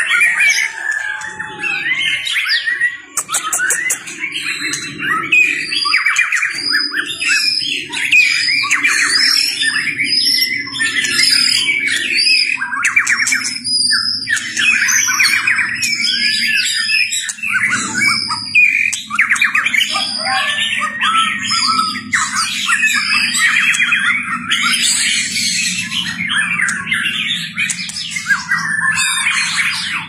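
White-rumped shama singing a long, fast run of varied whistled phrases, nearly without pause.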